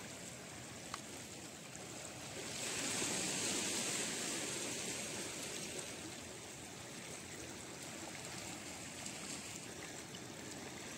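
Steady wash of shallow seawater trickling and lapping among shoreline rocks, swelling louder for about three seconds a couple of seconds in.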